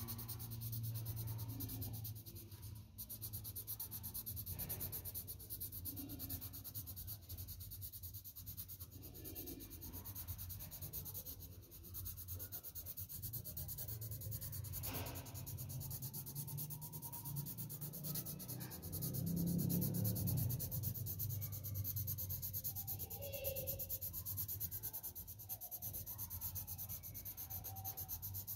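Graphite pencil scratching back and forth on paper in continuous shading strokes, with a steady low hum underneath.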